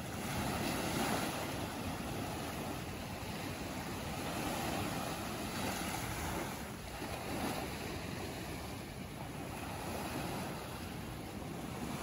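Sea surf surging in between rock walls and washing back out, a steady rush of water that swells and eases every few seconds.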